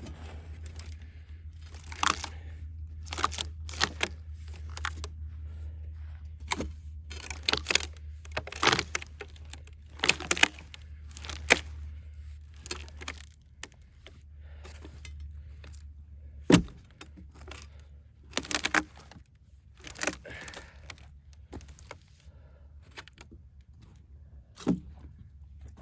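Cedar log being split into rails with wedges and a pry bar: a long run of sharp, irregular cracks and snaps as the wood fibres tear apart. A single heavy knock comes about two thirds of the way through.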